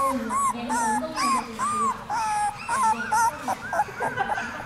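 Newborn Border Collie puppies, about 17 days old, whimpering and squealing: a quick run of short, high, arching cries, a few each second, without a break.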